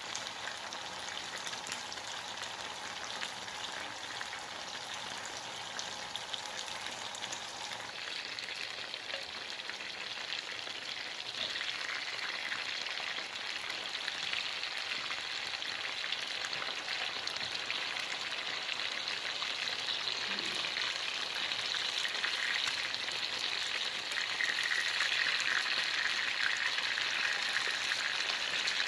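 Marinated chicken pieces shallow-frying in a little hot coconut oil in a pan: a steady sizzle that grows louder a few times as the frying goes on.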